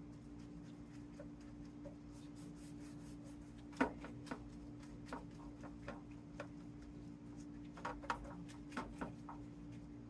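Quiet kitchen handling sounds: melted butter-and-olive-oil mix being swiped over phyllo pastry sheets, with a few light scattered taps, over a steady low hum.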